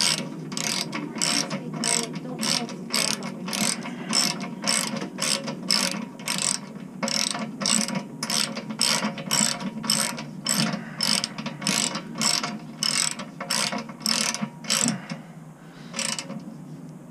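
Hand socket ratchet clicking in steady back-and-forth strokes, about two a second, as it tightens the bolts on a snow plow blade all the way. The strokes stop about fifteen seconds in, with one last stroke a second later.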